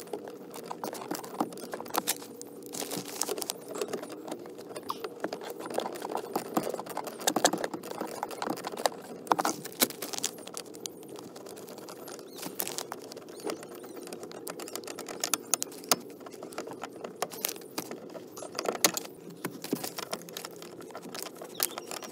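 Hand tools working the mounting nuts of a clutch master cylinder from under a truck's dashboard: irregular small metallic clicks and clinks, bunched in quick runs, over a steady hum.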